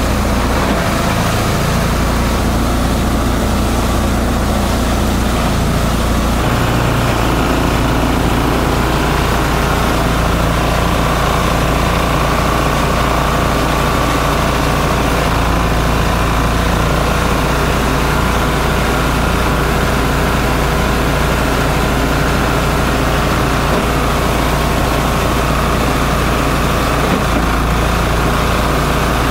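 A multi-purpose chopper/shredder machine running steadily while books and bank notes are fed in and shredded. The sound changes character about six seconds in.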